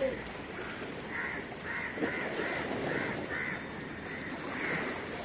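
A crow cawing in a run of about eight short calls, roughly two a second, over steady outdoor background noise.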